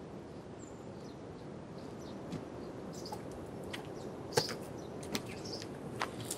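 Quiet outdoor ambience: a steady low background hiss with a faint high chirp near the start, then a handful of sharp, irregular clicks or taps from about two seconds in.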